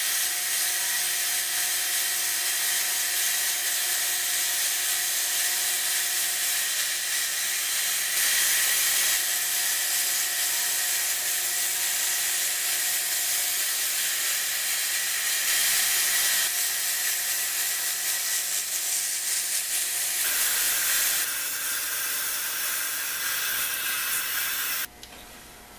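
Steady hiss of dust-collection suction running alongside a small lathe turning a wooden blank, with a toolpost-held tool cutting the wood down quickly. The noise cuts off about a second before the end.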